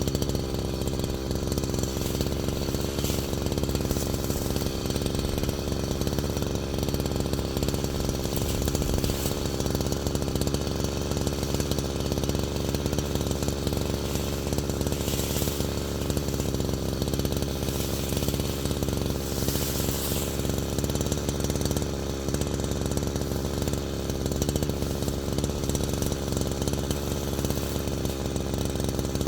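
A small gasoline engine running steadily at a constant level, used for cutting or splitting firewood.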